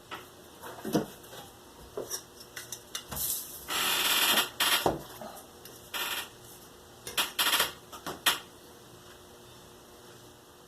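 Drawing a line on cardboard along a ruler: a few light knocks and clicks as the ruler and pencil are handled, and scratchy strokes across the cardboard, the longest about four seconds in, with shorter ones near six and seven seconds.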